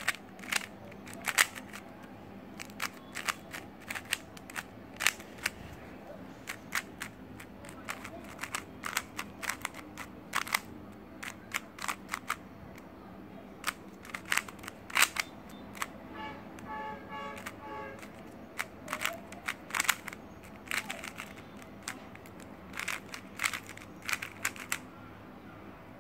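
GAN Monster Go magnetic 3x3 speed cube being turned by hand: irregular quick clicks and clacks as the plastic layers turn and snap into place, sometimes several in a rapid run.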